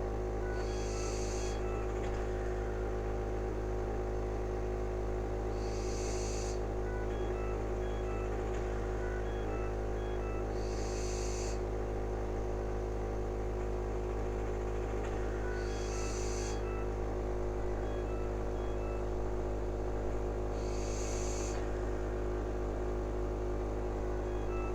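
Cough assist (mechanical insufflation-exsufflation) machine running with a steady hum, a rush of air through it about every five seconds as it cycles to clear mucus from the airways.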